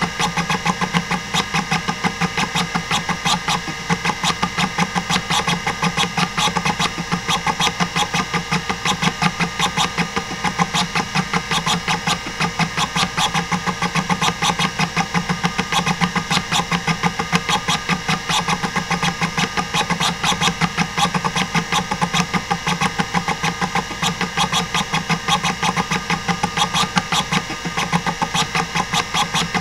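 Hitachi DK505-2 26 MB stepper-motor hard drive seeking during a random-access benchmark: a rapid, steady run of stepper clicks, several a second, over the steady hum of the spindle motor. The owner reports the drive in perfect health.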